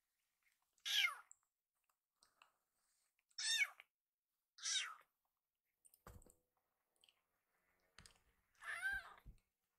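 Young kitten meowing loudly four times in high-pitched calls, the last one longer, calling for more food after its meal. There are faint soft bumps between the calls.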